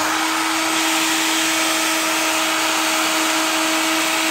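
Philips SalonDry Compact hair dryer running steadily, blowing hot air: a constant rush of air over an even motor hum.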